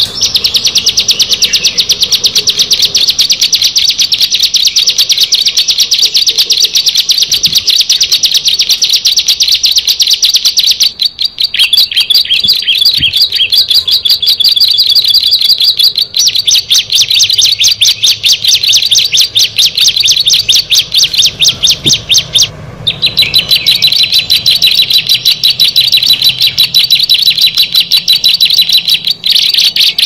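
Ciblek (prinia) song: a loud, very rapid, high-pitched run of repeated notes that goes on almost without pause, broken only briefly about eleven, sixteen and twenty-three seconds in.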